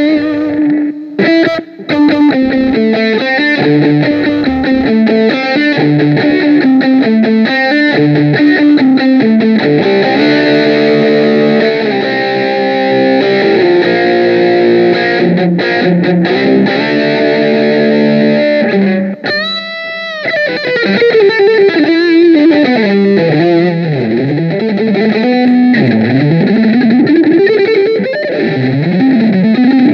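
Electric guitar played through a Zoom G7 multi-effects processor: a continuous run of picked single-note lines and chord figures. About two-thirds of the way in a note wavers widely in pitch, and the playing then moves into sliding notes that glide up and down.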